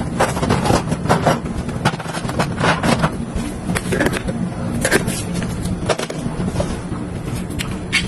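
Busy handling sounds: many irregular clicks, taps and knocks of small objects being picked up, moved and set down, with rustling and scraping between them and a steady low hum underneath.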